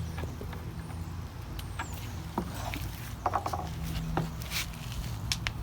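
Scattered small clicks and knocks from handling the tool and its parts, over a steady low hum.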